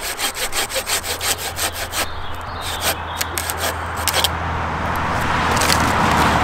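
Oregon 13-inch curved pruning hand saw cutting through a tree branch: quick, regular strokes of the blade rasping through the wood, several a second, for about two and a half seconds. After that a rushing noise builds steadily until the end.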